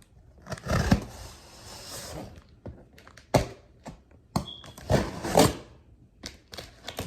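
Cardboard box being torn open by hand. There are rasping tearing sounds about a second in and again around five seconds, with several sharp knocks and thumps between them.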